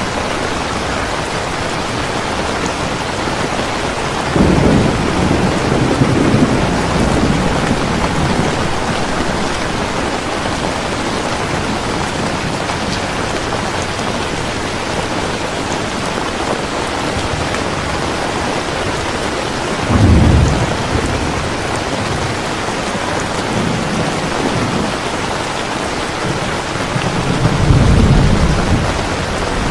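Heavy rain falling steadily, with deep rolls of thunder: one breaks suddenly about four seconds in and rumbles for a few seconds, a shorter one comes near twenty seconds, and another builds near the end.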